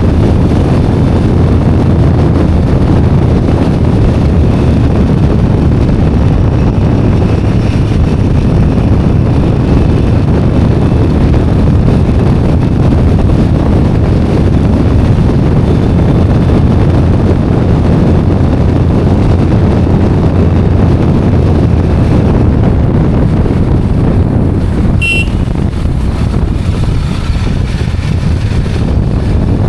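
Steady rush of wind and road noise from riding a motorbike, loud and low, with the engine running underneath. A short high-pitched beep sounds once near the end.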